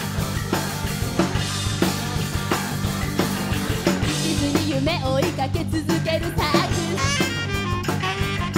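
Live band playing an upbeat rock song with drum kit, electric guitar, bass, keyboard and saxophone, and a steady drum beat. A lead melody comes in about halfway.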